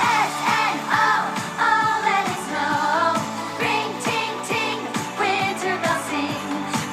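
Background pop song with a sung vocal melody over a steady beat.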